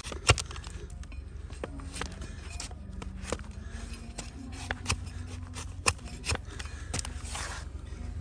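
Donkey hoof horn being pared with a trimming knife or hoof shovel: a string of crisp, irregular snaps and clicks as the blade cuts through hard hoof.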